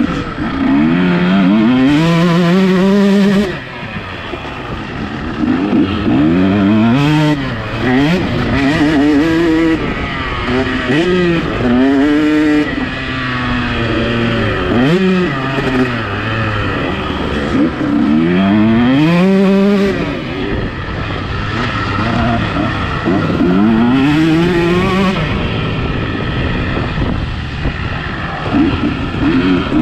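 Two-stroke motocross bike engine, heard from the rider's helmet camera, revving up hard in repeated rising sweeps and dropping back every few seconds as the throttle is opened and closed around the track.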